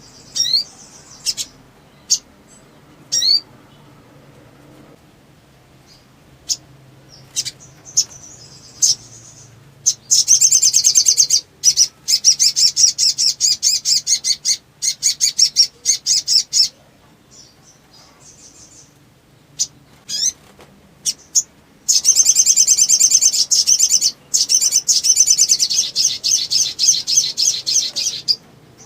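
Sunbird (sogon) singing: scattered sharp high chirps, then two long bursts of rapid trilled chattering song. The first burst starts about ten seconds in and the second about twenty-two seconds in, each lasting around six to seven seconds.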